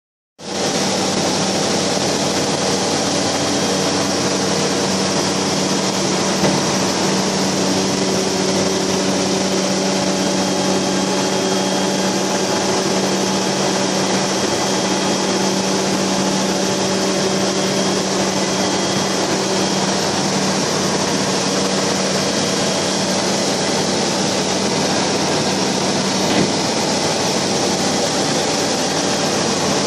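Aeroprakt light aircraft's engine and propeller running at a steady, unchanging pitch in level flight, heard from inside the cabin together with a continuous rush of wind noise. Two faint clicks sound near a quarter of the way in and near the end.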